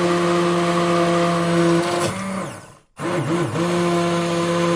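Electric blender motor running at a steady pitch, switched off about two seconds in so that it winds down to a stop. It starts up again about a second later, wavers in pitch briefly, settles and then cuts off at the end.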